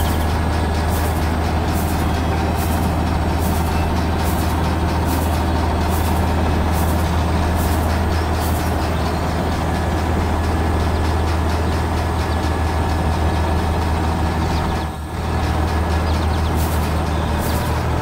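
Tractor engine running steadily, a loud low drone with a sharp clattering tick about twice a second. The drone dips briefly about fifteen seconds in and then resumes.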